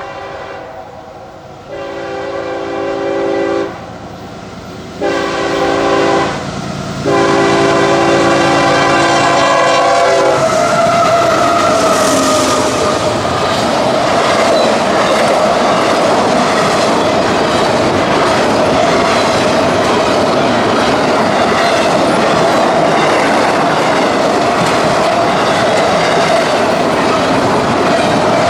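Freight locomotive's multi-chime air horn sounding three blasts, long, short, then long, as the train approaches. The train then passes close by, a loud, steady rush of locomotive and rolling wheels with a ringing tone held through it.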